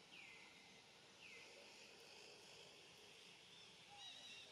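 Faint forest ambience with bird calls: two falling whistled notes about a second apart, then a run of short repeated chirps near the end.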